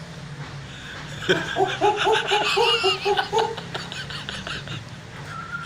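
A person laughing in a quick run of about ten short 'ha' bursts, loudest in the first half, over a low steady hum.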